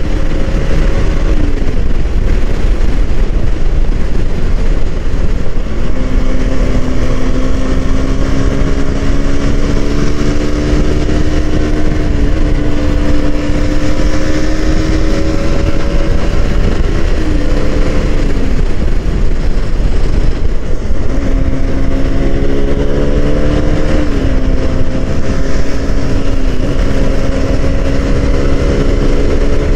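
Motorcycle engine at speed, heard from the rider's own bike, holding a steady note that climbs slowly and dips sharply in pitch several times as gears change. Heavy wind rumble on the microphone lies underneath.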